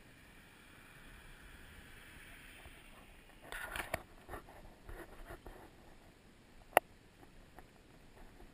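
Faint hiss, then scraping and clattering close to the microphone from about three and a half seconds in, and a single sharp click near seven seconds in.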